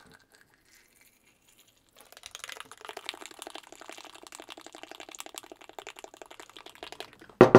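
A spoon stirring powdered drink mix and water in a glass tumbler, a quick run of light clicks against the glass starting about two seconds in. One louder knock comes near the end.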